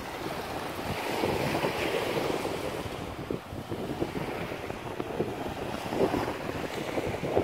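Wind buffeting the microphone over the wash of small waves on a shallow sandy shore.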